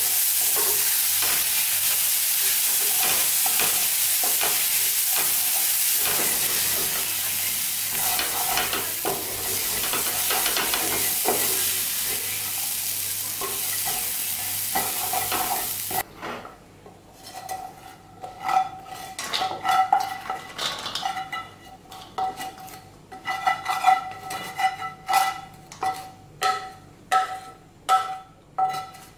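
Corn kernels sizzling in butter in a stainless steel frying pan, stirred and scraped with a spatula. About halfway the sizzle cuts off suddenly, and a run of sharp clanks and scrapes with a ringing metal tone follows: the spatula striking and scraping stainless steel cookware.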